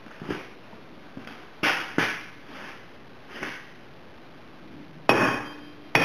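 Irregular metal clicks and knocks as a steel tool works inside an open rear differential, among the spider gears, to fish out an axle C-clip. Two louder, ringing clinks come about five and six seconds in.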